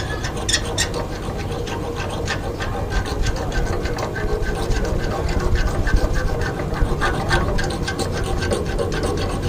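A small piece of hacksaw blade scraping back and forth on the end of an air-conditioner refrigerant pipe in quick repeated strokes, cleaning the pipe mouth bright so the braze takes well and does not leak.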